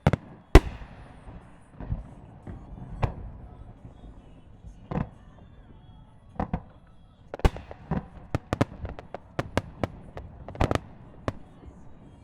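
Aerial firework shells bursting in an irregular string of sharp bangs, the loudest about half a second in, with a quicker run of reports in the last few seconds.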